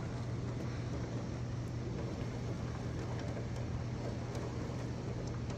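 Heavy thunderstorm rain pouring down, heard from indoors as a steady, even hiss, with a steady low hum underneath.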